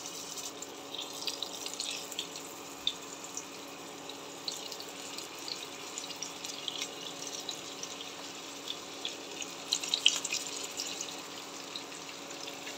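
Eggplant pieces sizzling and crackling in hot oil in a frying pan as more pieces are laid in. The crackling comes in denser spells about a second in and again around ten seconds, over a faint steady hum.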